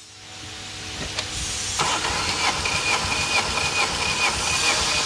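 A20NFT engine cranked over on its starter motor for a compression test on cylinder number one, starting about two seconds in. The cranking is steady, with a high whine that pulses about three times a second.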